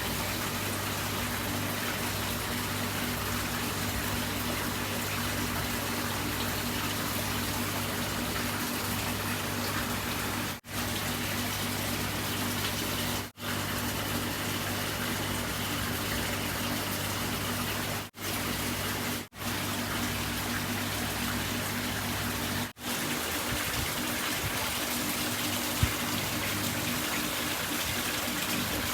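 Steady rush of running water over a low, steady hum, cut by a few very brief dropouts.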